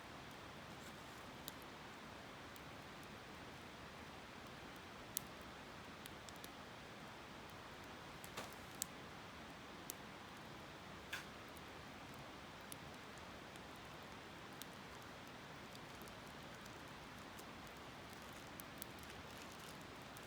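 Steady rush of a river, with the sharp, scattered pops and crackles of a wood campfire, about ten in all.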